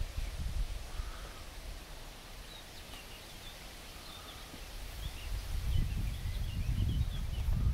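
Small birds twittering in short, high chirps over a low rumble, which fades in the middle and comes back near the end.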